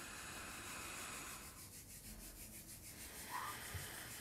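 Hands rubbing together palm on palm, a faint steady swishing made to imitate tree branches rustling in the wind.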